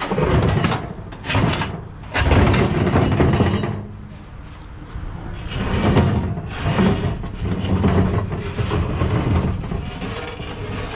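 Pieces of scrap metal being thrown and dragged off a truck bed: several loud clanks in the first few seconds, then a longer stretch of rough scraping and clatter.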